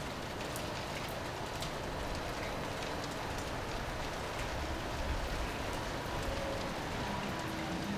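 Light rain pattering, with scattered drop ticks over a steady hiss, while gusty wind makes an uneven low rumble on the microphone.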